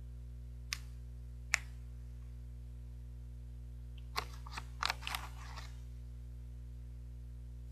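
A plastic snack bag of caramel corn crinkles as a hand reaches in for a piece. There is a quick burst of sharp crackles about four seconds in, after two single clicks near the start. A steady low hum runs underneath.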